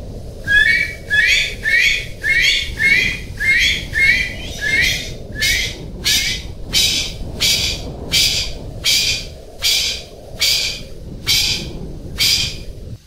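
Golden pheasant calling: a steady series of short, high calls, about three every two seconds. The first several rise in pitch within each note, and the later ones are shorter and higher, all over a steady low background rumble.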